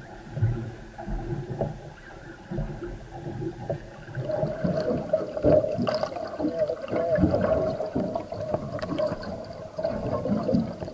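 Wind and water noise on a boat's deck. About four seconds in, this changes to underwater sound: muffled gurgling and crackling water with a steady hum.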